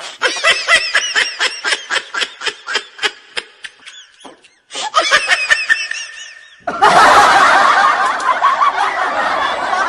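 Laughter: a high-pitched giggle in quick repeated bursts, about four a second, then from about seven seconds in a louder, denser stretch of laughter that starts abruptly.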